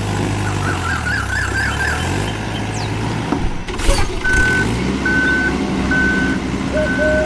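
Vehicle engine running with a low hum, then a sharp click about four seconds in, followed by a reversing alarm beeping four times at an even pace.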